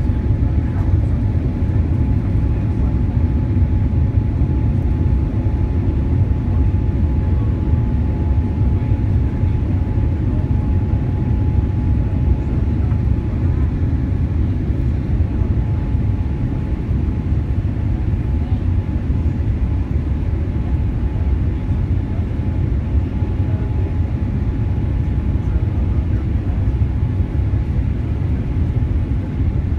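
Steady cabin noise inside a Boeing 787-8 airliner on approach: an even low rumble of engines and airflow, with a faint steady whine running through it.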